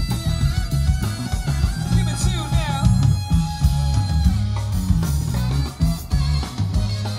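Blues-rock band playing an instrumental passage with electric guitar, bass and drums, including wavering bent notes about two seconds in.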